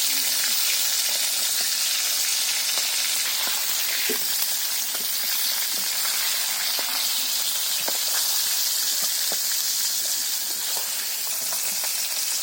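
Pieces of turmeric-and-salt-rubbed fish sizzling steadily in hot oil in a karai, with a light scatter of crackles.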